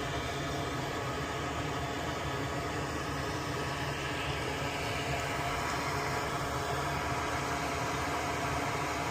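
Steady whir of a small electric blower running on the workbench, an even hiss with a low hum underneath.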